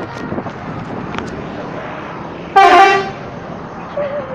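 Bus telolet horn sounding one short, loud multi-tone blast about two and a half seconds in, over steady street noise.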